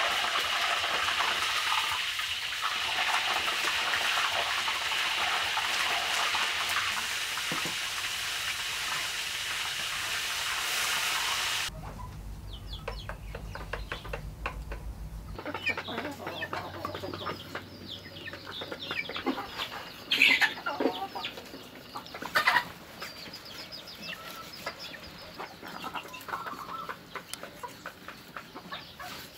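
A cow's foot frying in hot oil in a wok: a steady, loud sizzle that cuts off suddenly about twelve seconds in. After it, chickens cluck in the background, with a few sharp knocks.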